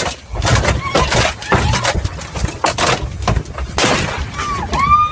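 An elephant battering a tourist jeep: a rapid, irregular run of loud crashes and bangs against the vehicle's body.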